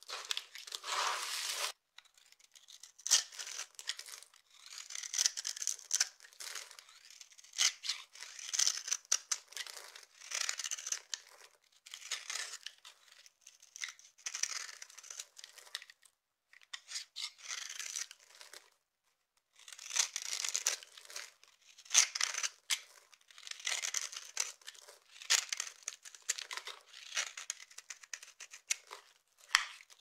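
Dry soap being cut and crushed: a knife scraping and slicing through a bar of dry soap in short, crisp strokes every second or two, with crumbly crunching as pieces break up in the hand. Before that, hands rustle through a pile of dry soap shavings, then a short silent break.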